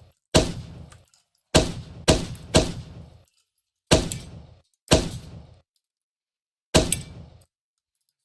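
Genesis Gen-12 semi-automatic 12-gauge shotgun fired seven times in quick, uneven strings, each blast dying away in under a second.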